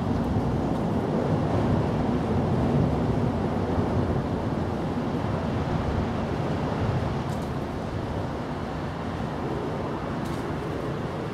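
Steady low rumbling outdoor background noise, with two faint clicks in the second half.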